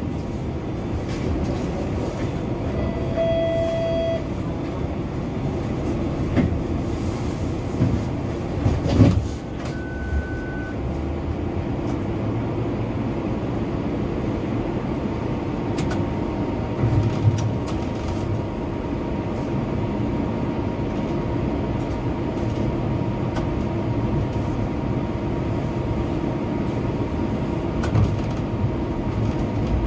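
Bombardier TTC streetcar heard from inside: a steady rumble and hum of the rail car. A faint steady whine joins about halfway, as the car gets moving.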